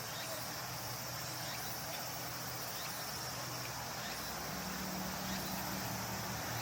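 Insects chirping steadily in a high-pitched, pulsing chorus, over a low steady hum that shifts up in pitch about two-thirds of the way through.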